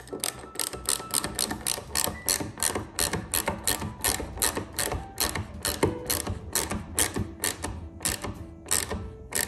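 Ratchet clicking in quick, even strokes, about three or four clicks a second, as it cranks a tapered threaded insert into wood.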